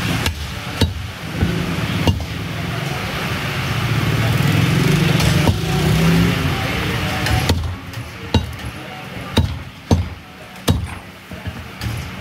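Butcher's cleaver chopping beef on a wooden chopping block: about ten sharp single chops at irregular intervals, with a pause of a few seconds in the middle, over a steady background din.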